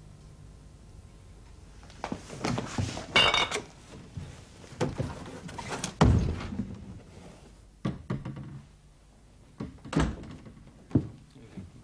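A heavy refrigerator door opening with a clatter of glass bottles, followed by a series of thuds and knocks such as footsteps and a door.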